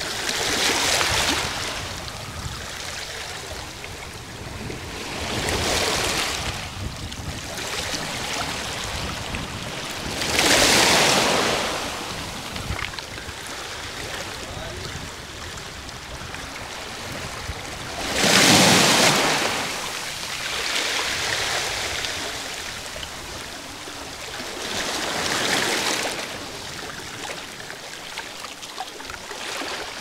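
Small Black Sea waves breaking on a pebble beach and washing back over the stones, about six surges that swell and fade every five seconds or so, two of them louder than the rest.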